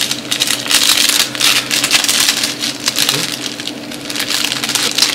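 Clear plastic film wrapper of an onigiri-style nori-wrapped sushi roll being pulled open by hand: a dense, continuous run of crinkling and crackling.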